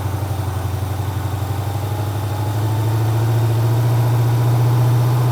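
Freshly rebuilt 350 small-block Chevy V8 running on its first start, its speed rising steadily over a few seconds as it is brought up to about 2,000 RPM to break in the new camshaft.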